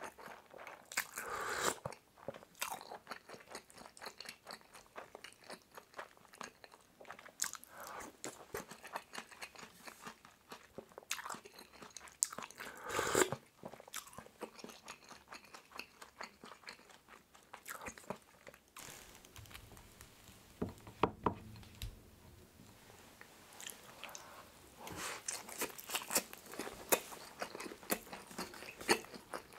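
Close-miked eating: chewing mouthfuls of pork kimchi stew with many small wet mouth clicks, and spoonfuls of broth taken from a wooden spoon. There are louder spells about a second in, around the middle, and near the end.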